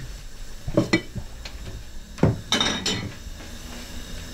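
Kitchenware being handled: a few clinks and knocks as cookware is taken down from a wall cupboard and moved about at the stove.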